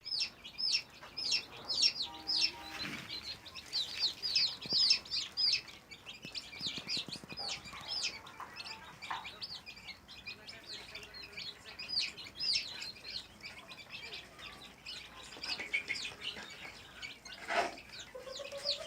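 Many chickens calling at once: a dense, unbroken chorus of short, high peeps and chirps.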